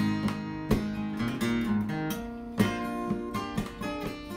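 Background music of strummed acoustic guitar chords.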